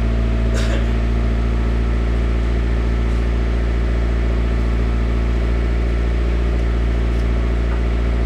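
1993 Mazda Miata's 1.6-litre four-cylinder idling steadily through a newly fitted MagnaFlow cat-back exhaust, with a brief click about half a second in.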